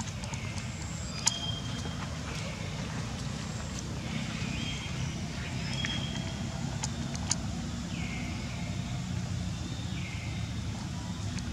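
Steady low motor rumble, with short calls that slide down in pitch and level off, repeating about every two seconds, and a few sharp clicks.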